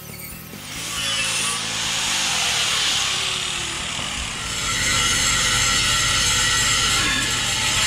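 Grinders working welded sheet-steel patches: an angle grinder's disc rasping steadily on the metal, then, about halfway in, the steady whine of an air-powered grinder on the steel.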